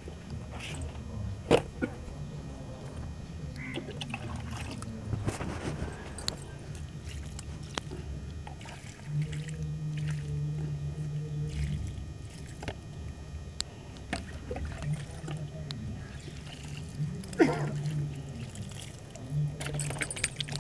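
Hand work planting okra seedlings in garden soil: scattered knocks and rustles, with two sharper knocks, one about a second and a half in and one near the end. A low hum comes and goes underneath.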